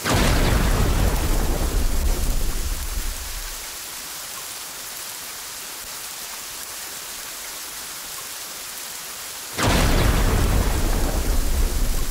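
Thunderstorm: steady heavy rain with a sudden thunderclap at the start that rumbles for about three seconds, and a second clap about nine and a half seconds in that rumbles on to the end.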